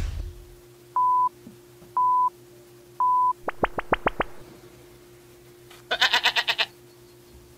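Edited-in cartoon sound effects: three short electronic beeps a second apart like a countdown, then a quick run of five rising chirps, and about six seconds in a brief rapid cartoon laugh, over a faint steady hum.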